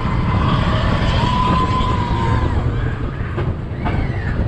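Seven Dwarfs Mine Train roller coaster car rolling along its track with a steady low rumble. A thin, high held tone rides over it for about a second and a half, starting about a second in.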